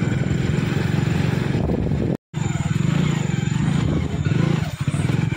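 Motorcycle engine running steadily under way, its low, fast pulsing heard from on the bike. The sound cuts out for a moment a little over two seconds in.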